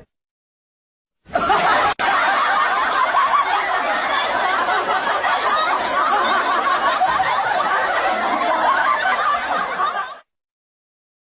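Laughter, dense and continuous, that cuts in about a second in, runs for roughly nine seconds, then cuts off abruptly.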